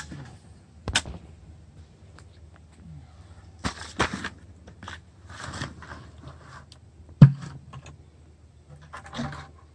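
A bucket of dry, hard clay clods and powdery dirt being handled and tipped out onto a dirt pile: a few sharp knocks, the loudest about seven seconds in, and short rushes of dirt pouring and sliding out.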